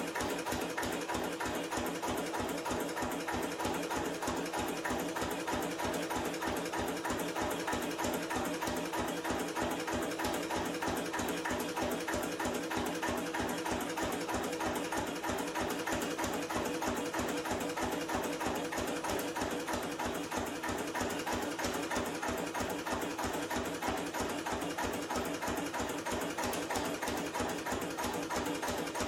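1953 Lister CS 3.5 HP single-cylinder diesel stationary engine running steadily, its even, rapid mechanical clatter unchanging throughout.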